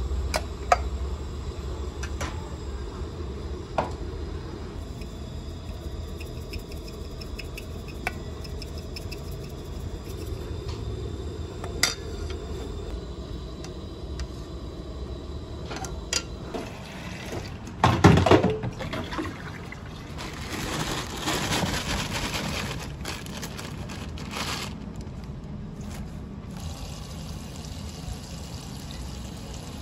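A metal ladle clinks against an aluminium pot while broth is stirred and scooped. The broth splashes and pours back from the ladle, with one loud clatter about two-thirds of the way through. A steady low hum runs under the first half.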